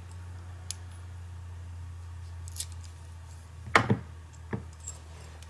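A few small metal clicks and taps from a Lockwood padlock's parts as it is opened with its key and taken apart. The sharpest click comes a little under four seconds in. A steady low hum runs underneath.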